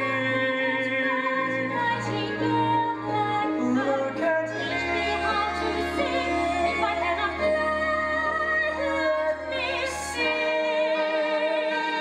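A woman singing long held notes with vibrato in an operatic musical-theatre style, over sustained instrumental accompaniment with a steady bass line.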